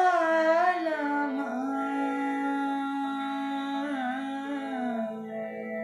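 A woman singing the closing phrase of a thumri in raag Mishra Khamaj. She makes quick ornamented turns, then about a second in she holds one long note, which dips and settles lower near the end, over a steady drone.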